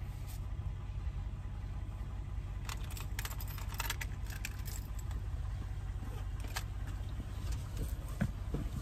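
Car engine idling, a steady low hum heard from inside the cabin. A short run of light jingling clicks comes about three to four seconds in.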